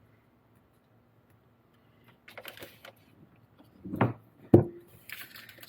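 Hard parts handled and rustled on a workbench, with two sharp knocks about half a second apart as objects are set down, the second with a brief ring.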